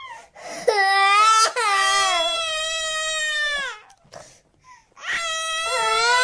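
Cartoon child characters crying in long, high-pitched wails, two voices overlapping. The cries stop about four seconds in, and a new wail starts about a second later.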